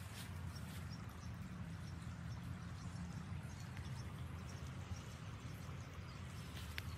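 Outdoor backyard garden ambience: a steady low rumble, with a few faint, short, high chirps.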